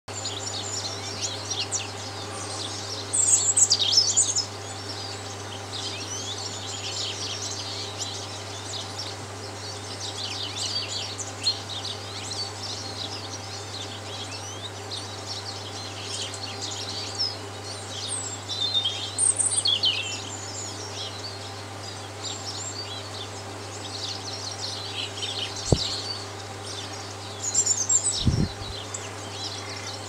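Several woodland birds chirping and singing in a continuous chorus of short high notes, with louder flurries about 3 seconds in, near the middle and near the end. A steady low hum runs underneath, and two soft low thumps come near the end.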